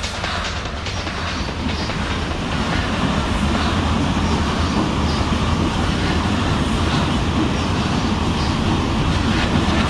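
Freight train of high-sided open wagons rolling past behind a Siemens Taurus electric locomotive: a steady rumble of wheels on the rails with a few faint knocks, growing louder.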